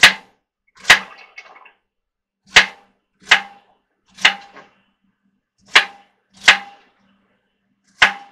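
Kitchen knife chopping celery stalks on a wooden cutting board: about eight sharp, separate chops, roughly one a second at an uneven pace.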